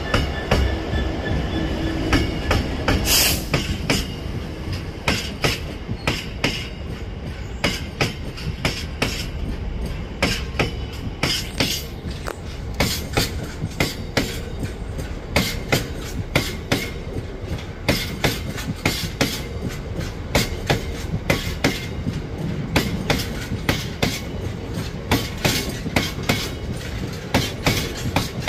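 A Class 66 diesel freight locomotive's engine running as it passes in the first few seconds, then a long train of box wagons rolling by, the wheels making a steady clickety-clack over rail joints.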